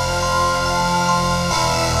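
Background music: held chords that change to a new chord about one and a half seconds in.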